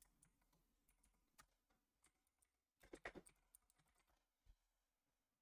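Faint computer keyboard keystrokes: a few scattered taps and a short run of typing about three seconds in.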